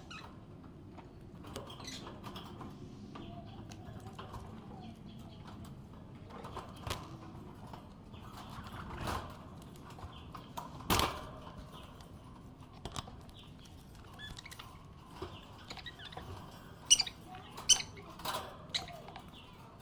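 Budgerigar chirping in scattered short, sharp calls, with a cluster of louder chirps near the end.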